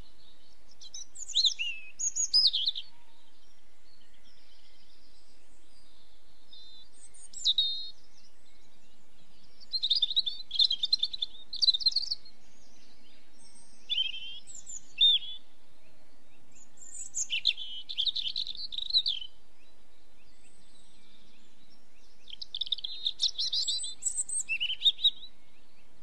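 Small songbirds singing in short, high-pitched phrases of quick notes and trills, about six phrases a few seconds apart, over a faint steady background hiss.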